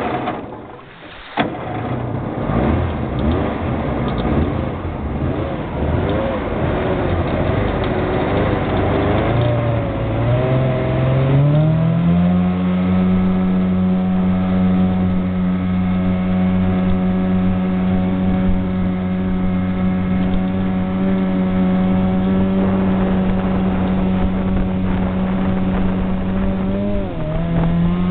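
Homemade jet boat's engine running under way, rough and wavering at first, then climbing in pitch about ten seconds in to a steady high drone. Near the end the note dips briefly and comes back up.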